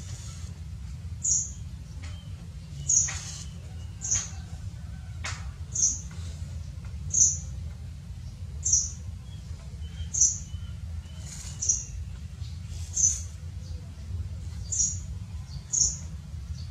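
Baby monkey giving short, high-pitched peeps, about one every second and a half, over a steady low hum.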